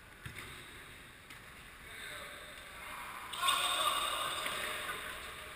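Echoing sports-hall sound of an indoor futsal game. A dull thud of the ball being kicked comes a fraction of a second in. From about three seconds in, players' footsteps, shoe squeaks and calls grow louder as they crowd around the ball.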